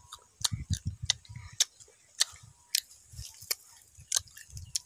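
Close-up crunchy chewing and biting of firm unripe green mango: about eight sharp, crisp crunches, roughly one every half second or so, over soft low thuds.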